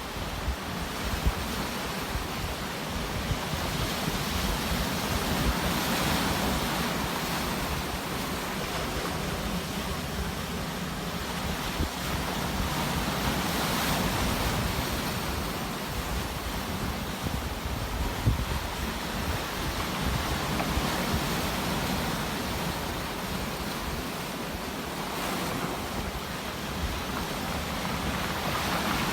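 Sea waves breaking and washing ashore, a steady rushing that swells and eases every few seconds, with wind rumbling on the microphone.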